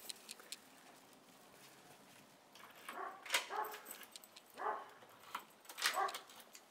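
A dog whining and whimpering in several short calls from about three seconds in, eager at the owner's arrival, mixed with a few light clicks near the end as a key goes into the front-door lock.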